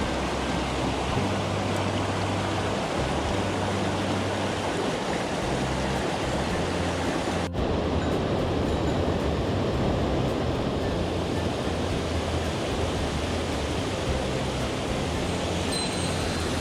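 Mountain stream rushing steadily, running high after rain, cut by a brief dropout about halfway through.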